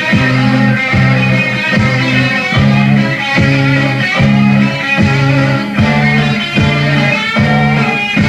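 Rock music with guitars and a steady beat.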